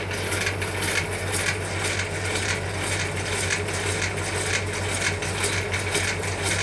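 Small electric motor driving a crank-and-linkage rig that flaps an acrylic foil up and down: a steady hum with rapid, regular clicking and rattling from the mechanism.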